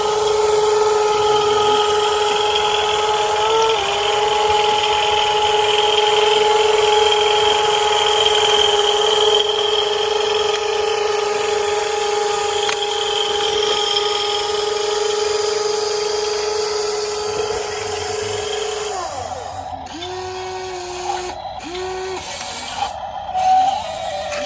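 Electric motor of a WLtoys 16800 metal RC excavator whining at a steady pitch under power, stopping about 19 seconds in, then a few short bursts as the controls are blipped. A brief clatter near the end.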